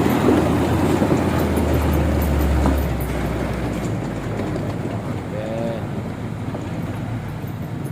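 Diesel engine of a truck loaded with stone, running under load with a low drone that drops away about three to four seconds in.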